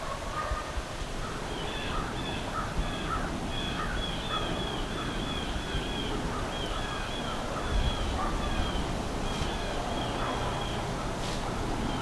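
Birds calling: long runs of short, quickly repeated call notes, about three or four a second, over low wind rumble.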